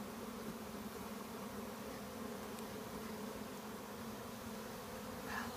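A mass of honeybees buzzing in the air around an opened hive during a frame transfer: a steady, even hum.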